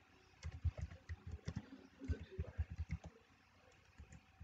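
Typing on a computer keyboard: a quick, uneven run of keystrokes for about two and a half seconds, then a pause and a couple more keys near the end.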